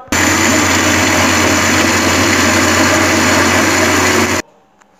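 Electric blender (mixer grinder) running at full speed, blending ice cream, ice cubes and soft drink into a smooth drink, with a steady motor hum under a loud churning noise; it starts suddenly and stops suddenly about four seconds in.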